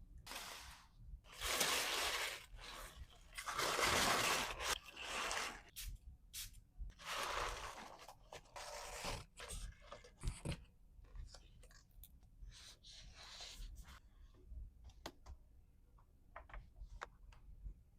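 Paper and plastic packaging being handled: several rustling, tearing swishes in the first half, then a scatter of small clicks and taps.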